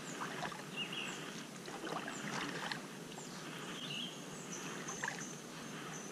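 Kayak paddle strokes, with light splashing and water dripping off the blades. Short high bird chirps come through now and then.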